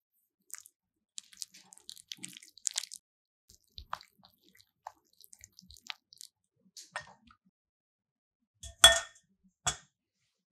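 Kitchen utensils being handled: scattered soft clicks, scrapes and wet squishing, then two sharp clinks of a utensil against a bowl near the end, the first ringing briefly and the loudest.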